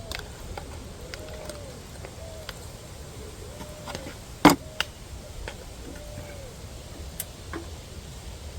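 A dove cooing nearby, a low, short, arched coo repeated over and over at an uneven pace. Scattered sharp clicks, the loudest about four and a half seconds in.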